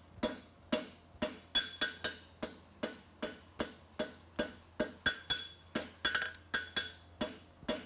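Farrier's hammer striking red-hot horseshoe steel bar on an anvil in a steady rhythm of about two blows a second, each blow ringing briefly.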